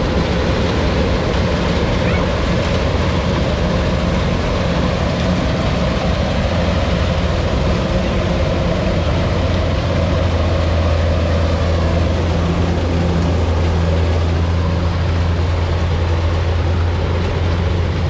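Kubota DC-70 rice combine harvester's diesel engine running steadily while it cuts rice, with a steady low hum that grows stronger about halfway through.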